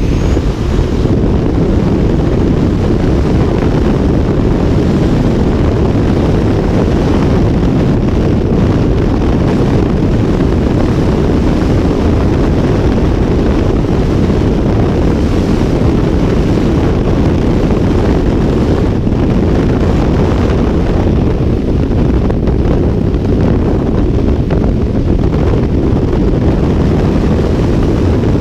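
Loud, steady wind noise of freefall air rushing over a helmet-mounted GoPro's microphone, mostly a deep low rumble with no break.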